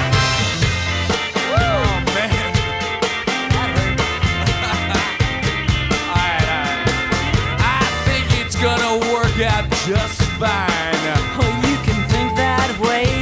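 Rock music with a steady drum beat, guitar and singing.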